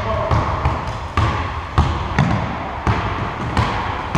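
Basketball being dribbled on a hardwood gym floor, a bounce roughly every half second, each one echoing in the hall.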